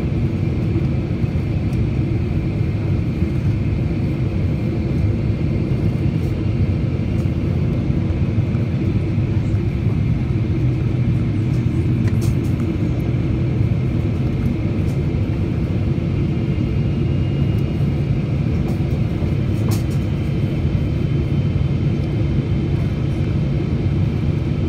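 Steady cabin noise of a Boeing 777-300ER on its descent, heard from a window seat beside the wing: a deep, even rumble of airflow and the GE90 turbofan engines, with a faint hiss above it.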